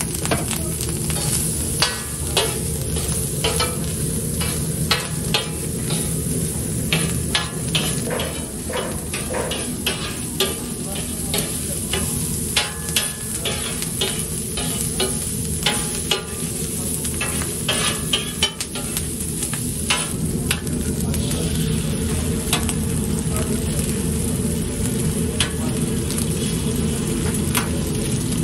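Diced sucuk sausage sizzling on a hot flat steel griddle, with frequent sharp clacks and scrapes of a metal spatula chopping and turning it, over a steady low hum. The clacks come less often in the later part.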